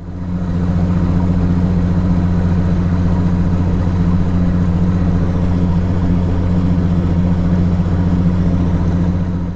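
Bass boat's 200-horsepower outboard motor idling steadily as the boat moves slowly along, a low even hum that fades in at the start.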